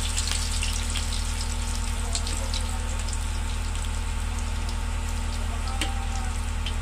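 Minced garlic sizzling in hot oil in a wok, a steady frying hiss dotted with small crackles as it is stirred with a metal spatula. A constant low hum runs underneath.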